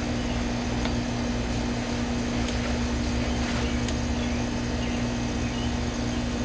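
A central air conditioner's outdoor condenser unit running with a steady hum, its compressor and fan giving a low drone. A few light clicks from scissors snipping sweet potato leaves.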